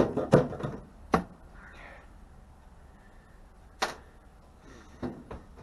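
Sharp metallic clicks and knocks of microwave parts and tools being handled during a teardown: several in the first second and one more about four seconds in.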